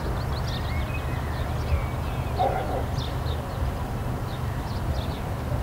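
Outdoor ambience: a steady low rumble, small birds chirping high and briefly, and a single dog bark about two and a half seconds in.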